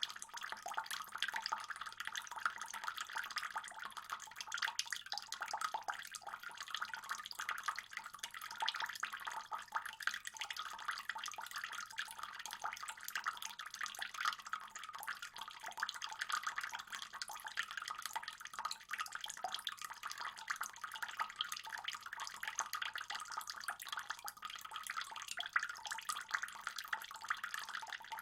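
Water in a fish pond trickling and splashing steadily, a dense patter of small drips and splashes.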